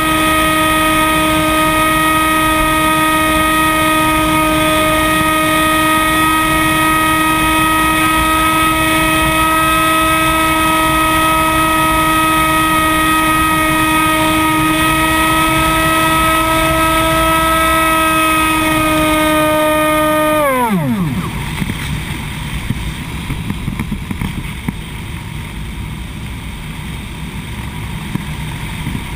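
Hawk Sky RC plane's electric motor and propeller running at a steady high-pitched whine, with wind rushing over the wing-mounted camera. About twenty seconds in, the throttle is cut and the whine drops quickly in pitch and dies away, leaving only wind noise as the plane glides.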